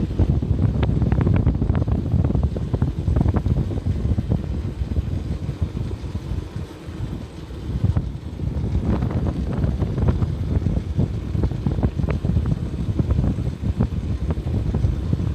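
Wind buffeting the microphone over the low rumble of a vehicle on the move, with many short knocks and rattles throughout. The sound eases off briefly about halfway through.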